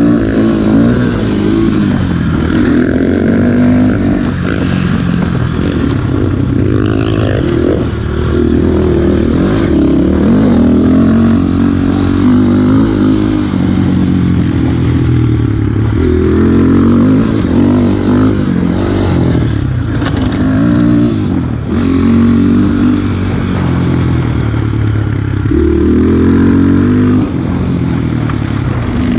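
Single-cylinder dirt bike engine under way on a trail ride. The revs climb and drop again and again as the bike accelerates and shifts.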